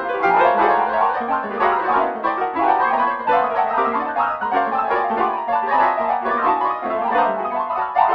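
MIDI music on a piano voice, with many notes sounding together and changing quickly in a busy, steady stream.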